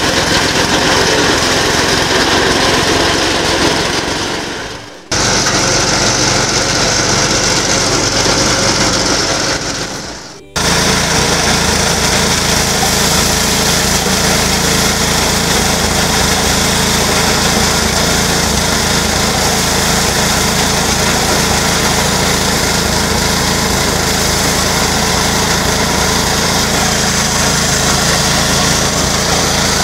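Small single-cylinder petrol engine running steadily under load, driving a homemade grain thresher as guinea corn (sorghum) heads are fed through it, with the threshing drum rattling. The sound fades and drops out briefly twice, about five and ten seconds in.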